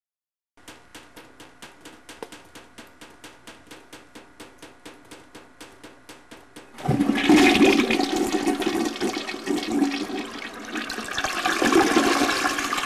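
Rapid, even ticking, about five or six ticks a second. About seven seconds in, a loud rush of water cuts in and goes on, like a flushing toilet.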